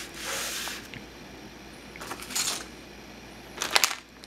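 Plastic packaging rustling and crinkling as parts are handled: bubble wrap and foil anti-static bags, with a cluster of sharp crackles near the end.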